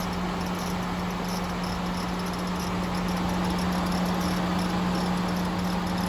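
Engine room of a 2010 Nissan Serena (C25) running, with a steady hum and a faint high-pitched chirping that keeps repeating on top of it. This is the abnormal noise that began coming from the engine room.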